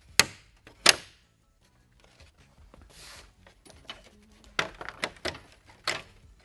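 Plastic snap clips popping loose as a flathead screwdriver pries the black plastic insert out of a Dodge Ram 1500 grille shell. There are two sharp snaps in the first second, then a run of clicks and plastic knocks from about four and a half seconds in as the insert is worked free.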